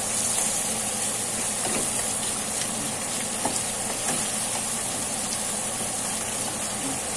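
Chicken in ginger and soy sauce sizzling in a wok over a lit burner: a steady hiss with a low steady hum underneath, and a faint click a few seconds in.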